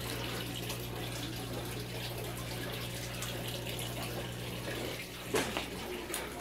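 Water trickling steadily through an aquaponics system, over a low steady hum. A few brief knocks come about five seconds in.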